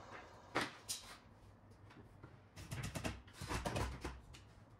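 Bed-frame boards and panels being handled and set in place: a sharp knock about half a second in, another just after, then a run of knocks, scrapes and dull thuds in the second half.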